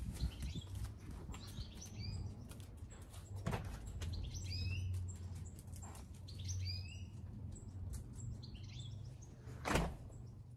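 Small birds chirping and calling repeatedly over a low steady rumble, with a knock about a third of the way in and a louder knock near the end.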